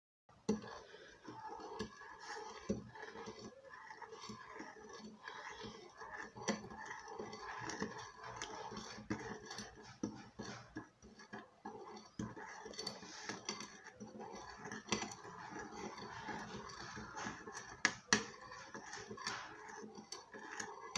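Wooden spoon stirring hot salt water and lime slices in a ceramic bowl: water swishing with many light clicks and knocks of the spoon, including a few sharper knocks.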